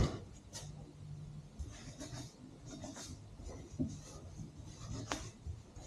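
Hand work on metal scooter parts: a sharp knock at the start, then scattered light clicks and scraping rubs as the pieces are handled and fitted.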